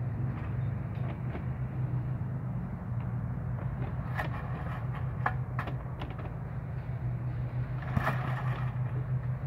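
Small gasoline engine of an old 1970s Row Buster running steadily at low throttle, short of the power it needs, with a few sharp knocks from the machine being worked.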